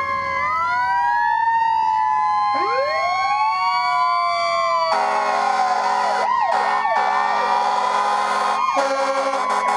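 Several fire-truck sirens wailing at once, their pitches sliding up and down and crossing each other. About halfway through, fire-truck air horns join with a loud steady blare that breaks off briefly a few times.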